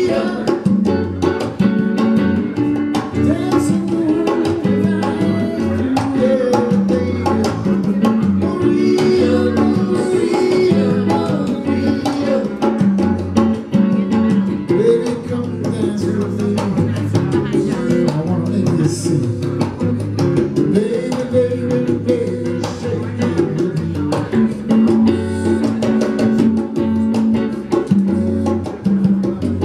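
Live band music: electric guitar over bass and drums, playing a steady beat.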